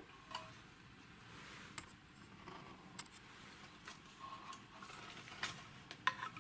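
Faint, scattered clicks and light taps from a metal avionics chassis being handled and turned over on a workbench, about half a dozen in all, over a quiet room background.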